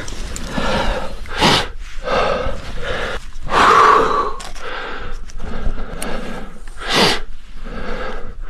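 A rock climber breathing hard through a crux: repeated loud gasps and forceful exhales, with two sharp, hard exhales about a second and a half in and near the end.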